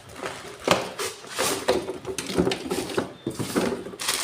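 Sharp plastic clicks and knocks with rattling handling noise as a toner cartridge is pulled out of a Samsung CLX-6260FD colour laser printer.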